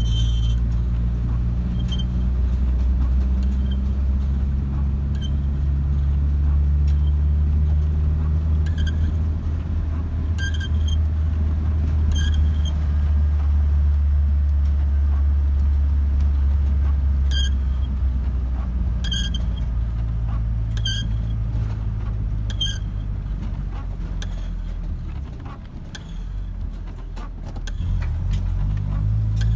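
Car driving with a steady low road and engine rumble, and a short high squeak repeating about every two seconds. The rumble drops briefly near the end, then rises again.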